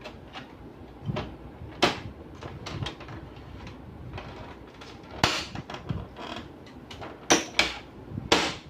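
The plastic cover panel of an HP LaserJet Pro M400dn laser printer being handled and fitted back onto the printer body, giving scattered plastic clicks and clunks. The loudest come in quick succession near the end as it snaps into place.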